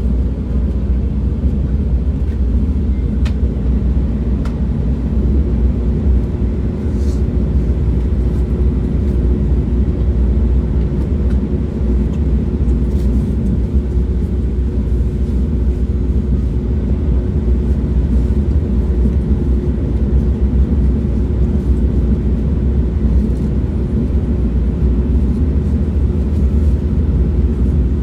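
Moving train's steady low rumble, with a faint steady hum joining about five seconds in and a few light clicks.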